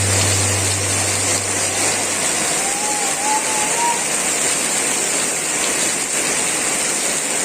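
Rain falling, a steady hiss throughout, with a low hum fading out about two seconds in and a faint wavering whistle a little later.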